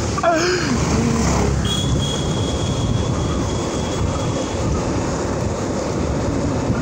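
Motorcycle running steadily while riding along a dirt track, its engine mixed with a low wind and road rumble. A thin, steady high tone sounds for about three seconds in the middle.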